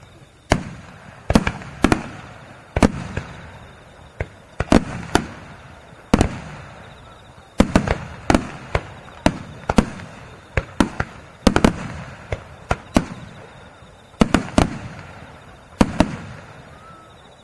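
Fireworks finale barrage: a rapid, irregular string of loud shell bursts, several a second at the busiest moments, each booming and echoing away.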